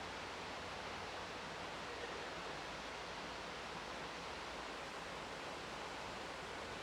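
Steady, even rush of running water, with no breaks or single splashes.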